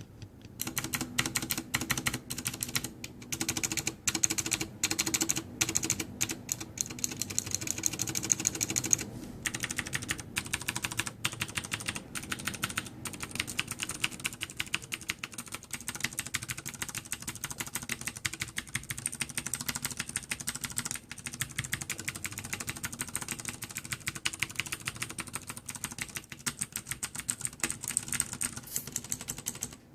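Fast, continuous typing on a Ducky Zero Zone mechanical keyboard with clicky Cherry MX Blue switches, a dense run of sharp key clicks with a brief lull about nine seconds in.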